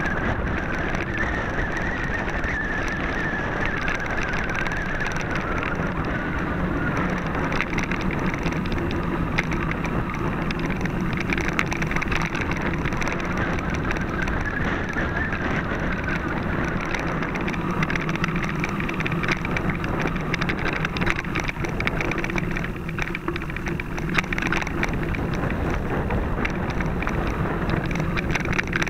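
Mountain bike rolling along a rough gravel and dirt singletrack: a steady rumble of tyres on the trail with constant small rattles and clicks from the bike.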